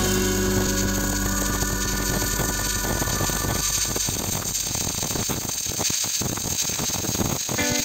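Stick (shielded metal arc) welding arc crackling steadily as a flux-coated electrode burns along a joint in thin square steel tubing; the crackle is densest from a few seconds in.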